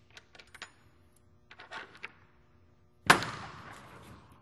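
Conventional lock-rod hardware on a semi-trailer's rear swing door being worked: light metal clicks and rattles from the handle and rods, then about three seconds in a single loud metal bang that rings on and slowly dies away.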